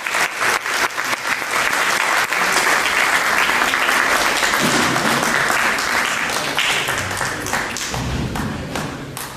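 Audience applauding, many hands clapping together, dying down near the end.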